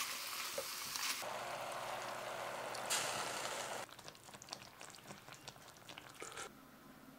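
Pork back ribs sizzling as they brown in a dry pot, a steady hiss that grows louder after about a second. About four seconds in it gives way to the softer, scattered popping of a kimchi stew simmering.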